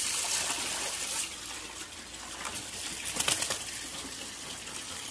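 Tap water running and splashing into a brimming plastic bucket as a dog bites and laps at the stream, with a louder flurry of splashes about three seconds in.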